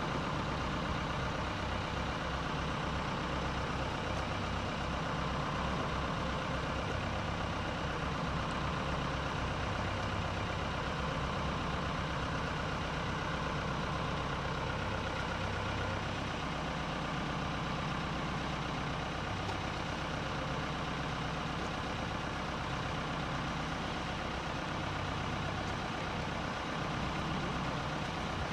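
Launch tractor's diesel engine idling steadily, with no change in speed.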